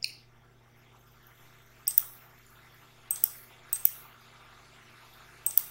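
Computer mouse clicking: a single click about two seconds in, then a few quick pairs of clicks. A faint steady low hum runs underneath.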